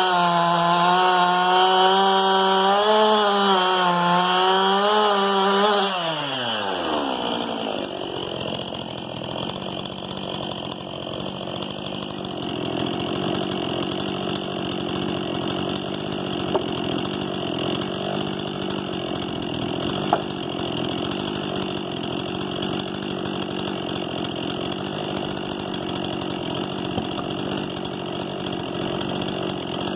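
STIHL MS 261 C-M two-stroke chainsaw running at full throttle, its pitch wavering slightly under load in a cut. About six seconds in, the engine note falls away and the saw settles into a steady, quieter idle, with a few faint clicks.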